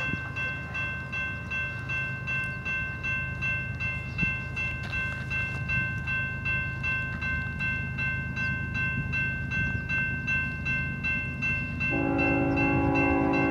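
Railroad grade-crossing warning bells ringing steadily over a low rumble. About twelve seconds in, a locomotive air horn starts blowing a steady chord.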